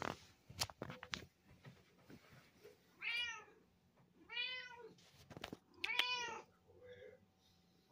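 A cat meowing three times, each a drawn-out call of about half a second that rises and falls in pitch, the last the loudest. A few sharp knocks come in the first second or so.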